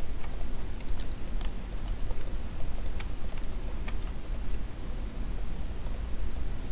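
Scattered faint computer mouse clicks, a few a second at irregular intervals, over a steady low electrical hum.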